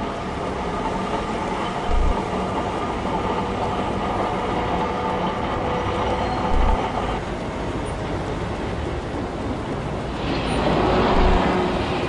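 City street traffic noise: a steady din of passing vehicles with a low rumble, and a louder vehicle passing near the end.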